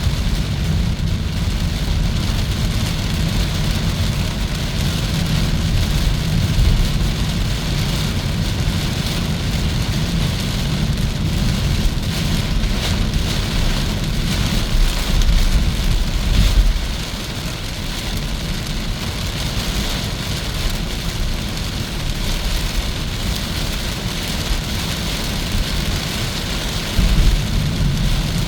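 Steady road and tyre noise of a Hyundai Kona EV on the move, a low rumble with a hiss over it and no engine note. It swells briefly about fifteen seconds in and again near the end.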